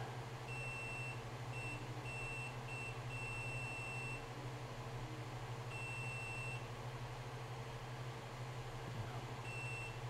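Digital multimeter in continuity mode beeping a steady high tone in short, irregular bursts as its probes make and break contact on the circuit-board pads. Each beep signals a closed connection, here to ground. A steady low hum runs underneath.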